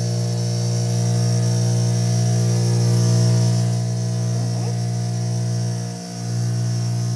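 Cotton candy machine's motor humming steadily as its spinner head turns, with floss being wound onto a paper cone. The hum dips briefly about six seconds in.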